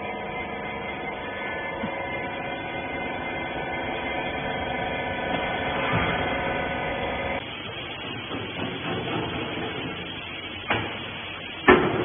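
Steady hum of a hydraulic rag baler's motor and pump running, which stops abruptly about seven seconds in. A quieter stretch of workshop noise follows, with a sharp knock near the end.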